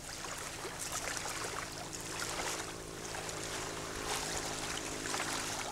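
Water lapping and trickling on the open lagoon, with small scattered splashes and a faint, steady low hum underneath.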